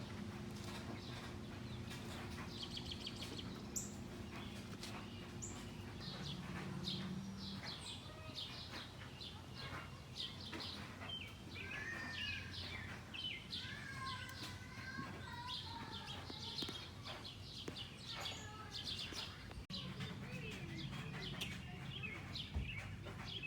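Several songbirds chirping and singing, many short calls and trills overlapping. A steady low hum runs under them for the first several seconds, stops, and comes back near the end.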